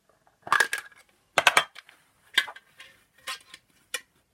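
Fidget spinners and their hard cases being handled, making about six separate sharp clacks and clatters, with the two loudest near the start.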